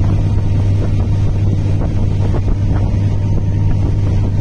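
Motorboat engine running steadily under way, a constant low hum, with wind buffeting the microphone.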